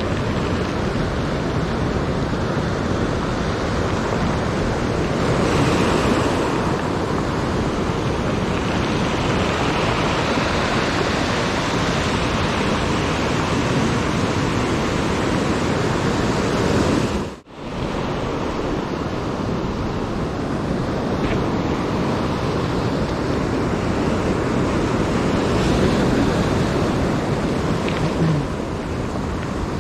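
Ocean surf breaking and washing up a stony beach, a steady rushing that swells as waves break. The sound cuts out abruptly for a moment about halfway through.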